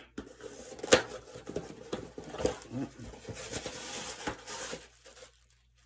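A package being opened by hand: rustling and crinkling of its wrapping with scattered small clicks, a sharp snap about a second in, and a denser stretch of crinkling near the end.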